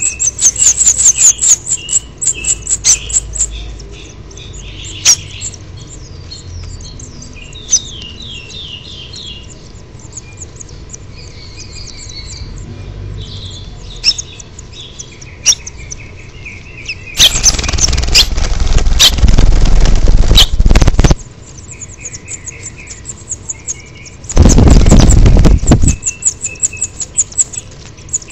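House finch nestlings begging at a parent with rapid trains of high, thin chirps, loudest at the start and near the end. About two-thirds through come two loud rushes of noise, about four seconds and then about a second and a half long, from a nearly fledged nestling flapping its wings close up.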